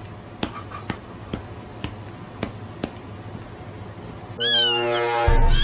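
Soft, evenly spaced clicks, about two a second, over a low hum, then a domestic cat gives one loud, drawn-out meow near the end.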